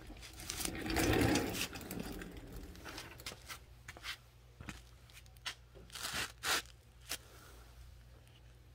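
Handling and movement noise: a scraping rustle about a second in, then scattered light clicks and knocks, over a low steady hum.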